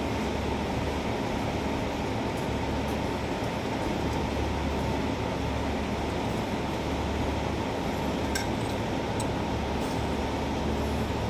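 Steady mechanical hum of a factory workshop, with a low drone and a faint steady whine, and a few light metal clinks about eight to nine seconds in.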